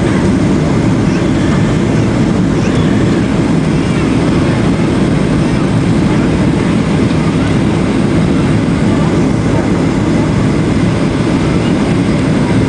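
Steady low cabin noise of a Boeing 737-700 in flight, the hum of its CFM56 turbofan engines and the rush of air along the fuselage heard from inside the cabin.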